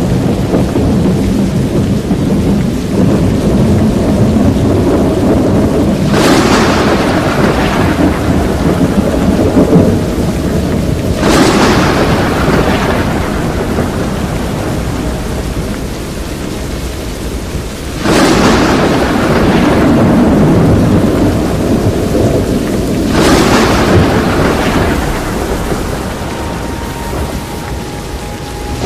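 Violent thunderstorm around a tornado: a steady deep rumble with rain, broken by four sudden crashes of thunder about five to six seconds apart, each fading away over a few seconds.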